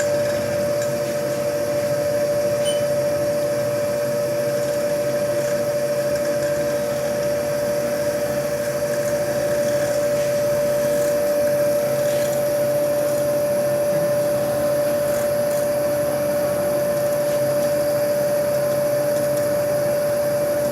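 Haas CNC milling machine spindle running steadily, a constant whine over machine hum. The spindle is turning while the tool is jogged down onto a slip of paper to set the Z offset.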